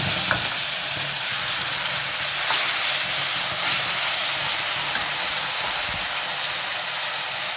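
Onion, ginger and garlic paste frying in hot oil in a kadhai, a steady sizzle, with a few light taps of the metal spatula as it is stirred.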